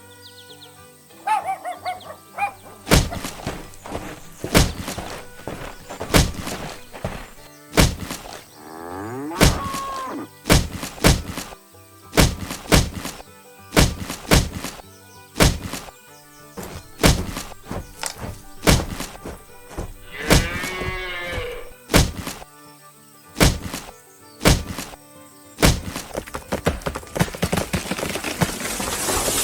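A long run of heavy thunks and whacks, more than one a second and irregularly spaced, over background music.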